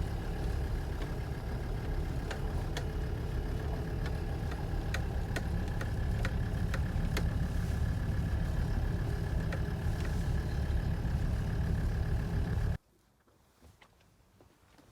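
A vehicle engine running steadily, with scattered light clicks over it; the sound cuts off abruptly near the end.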